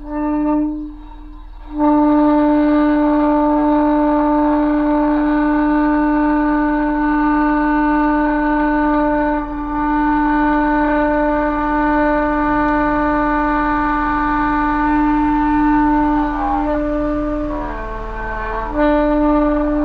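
A horn-like blown note in an experimental music piece. A short note sounds first, then one steady pitch is held for about sixteen seconds. Near the end it wavers and breaks off, then sounds again just before the close.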